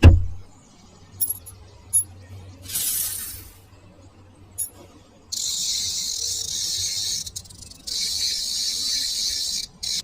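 A heavy thump, a few sharp clicks, then long spells of steady high hissing with a short break in the middle.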